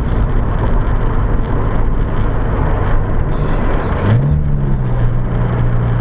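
Steady road and wind noise inside a Subaru BRZ's cabin at freeway speed. About four seconds in, the engine note of its flat-four rises briefly and then holds steady.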